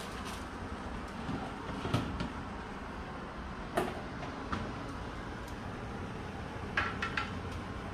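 Metal baking tray pulled out of the oven and set down with a few knocks, then three quick clinks of metal tongs against a ceramic plate near the end, over a steady low hum.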